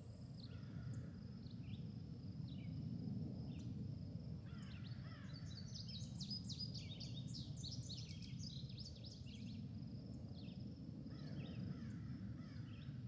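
Outdoor yard ambience: small birds chirping and twittering, busiest from about five to eight seconds in, over a steady low rumble and a faint, continuous high-pitched buzz.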